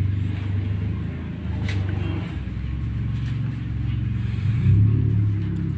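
A motor vehicle engine running nearby: a steady low hum that grows louder about four and a half seconds in.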